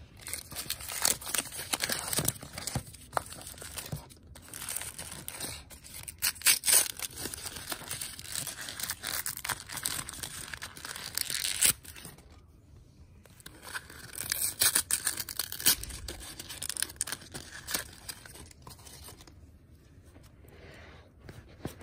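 Crinkly pink wrapper of an L.O.L. Surprise doll ball being torn open and crumpled by hand, in bursts of crackling with a short break about twelve seconds in.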